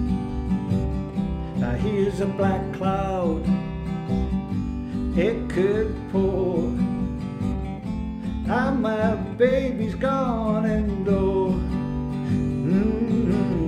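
Instrumental break in a song: strummed acoustic guitar chords over a steady low beat, with a lead melody of bending, sliding notes in four short phrases.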